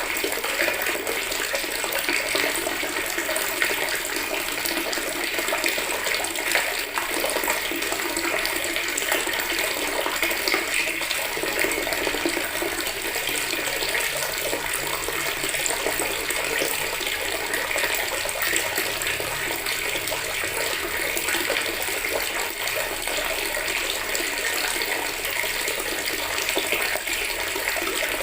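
Water tap running steadily into a bucket, a continuous splashing rush.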